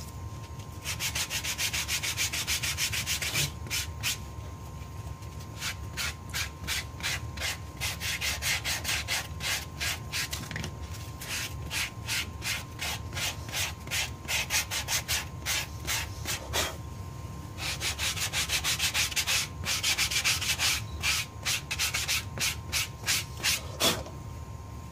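A hand sanding block with sandpaper is rubbed back and forth along the edge of a cemented sandal sole, flattening and smoothing it. It goes in quick strokes, about three a second, in several runs with short pauses between them.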